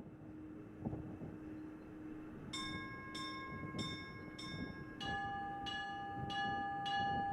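Orthodox church bells rung by hand. After a low steady hum, small bells begin striking about two and a half seconds in, in an even rhythm of roughly three strikes every two seconds, and a second, lower-pitched bell joins the pattern about five seconds in.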